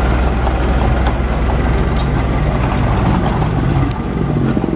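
Small crawler bulldozer's diesel engine running steadily as the machine pushes dirt with its blade, with a few sharp metallic clicks from the running gear.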